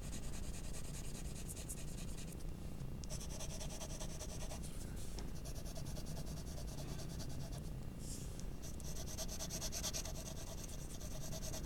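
Graphite pencil shading on paper: quick back-and-forth scratchy strokes laying in tone, with two short pauses, about two and a half seconds in and again near eight seconds.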